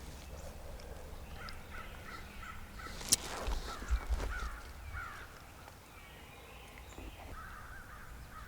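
Birds calling in series of short repeated notes, with a sharp click about three seconds in and low thumps on the microphone around four seconds in.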